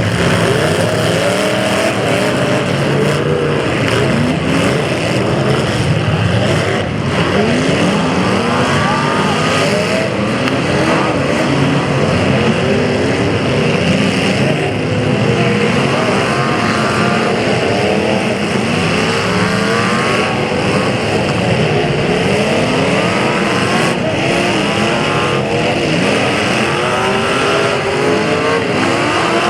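Several demolition derby cars' engines revving up and falling back again and again, overlapping, with a few sharp knocks among them.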